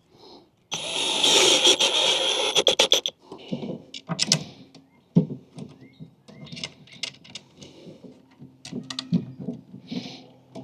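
Metal ball-bearing drawer slide being run along its rail and pulled apart, a loud rolling rattle for about two seconds that ends in a quick run of clicks, followed by scattered clicks and knocks of the parts being handled over a low steady hum.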